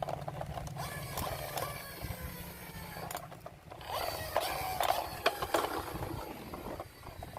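Plastic toy jeep's wheels and gears whirring and clicking as it is handled, with gliding whirring tones and rapid clicks.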